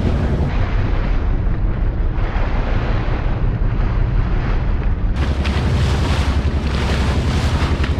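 Small fishing boat's engine running steadily under way, with wind buffeting the microphone and water rushing and splashing along the hull.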